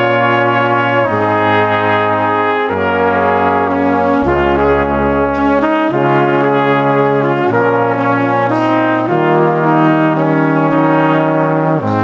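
Background music of slow, sustained chords that change about every one and a half seconds.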